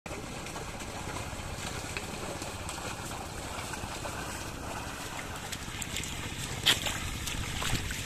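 Wind noise on the microphone over the wet splashing of two bullocks and a wooden leveller dragging through flooded paddy mud, with a sharp slap a little before the end.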